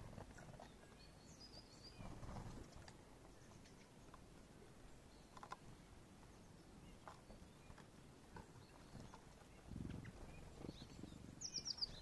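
Very faint outdoor quiet with small songbirds calling: a few high chirps about a second in, and near the end a quick run of about five high notes. Scattered soft ticks and a couple of faint low rumbles lie underneath.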